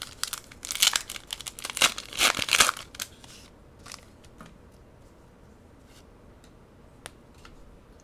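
Foil booster pack wrapper of a Pokémon trading card pack crinkling and tearing as it is worked open, in a dense burst of crackles over the first three seconds. After that come only a few light ticks from the cards being handled.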